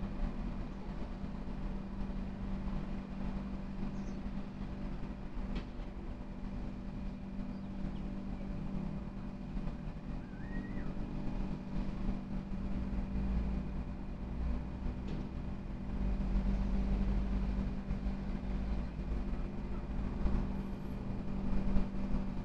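Steady low background hum and rumble with no speech, swelling slightly about two-thirds of the way through, and a short faint chirp near the middle.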